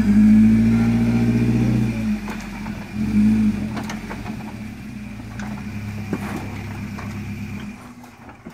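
First-generation Toyota 4Runner engine revving hard for about two seconds as the truck crawls up a rock ledge, with a second short rev about three seconds in, then running lower with a few knocks from the tyres and chassis on the rocks. The engine sound drops away near the end.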